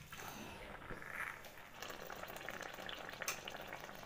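Thick maida halwa cooking in ghee and oil as it is stirred with a wooden spatula: a steady faint crackle of frying, with a few light knocks of the spatula against the pot.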